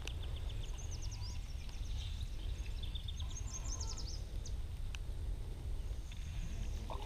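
Birds chirping in short, quick trills of high notes over a steady low outdoor rumble.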